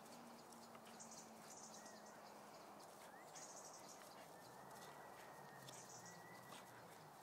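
Near silence: faint outdoor background noise, with a few faint high chirps every couple of seconds.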